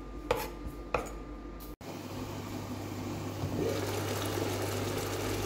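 Two knife strokes through green pepper onto a wooden cutting board, then chickpeas and vegetables simmering in a steaming pan, a steady hiss and bubbling over a constant low hum.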